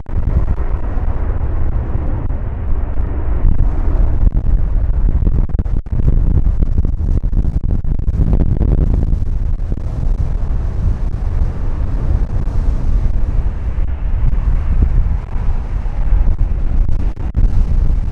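Jet engines of a wide-body airliner running close by, a loud, steady low rumble, with wind buffeting the microphone.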